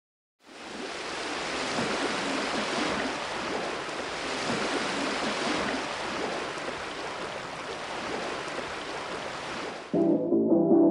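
Ocean surf, a steady rushing wash of breaking waves that fades in about half a second in and cuts off suddenly near the end, where music with guitar begins.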